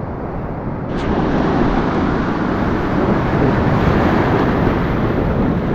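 Steady rushing of wind buffeting the microphone over surf on the shore, growing louder about a second in.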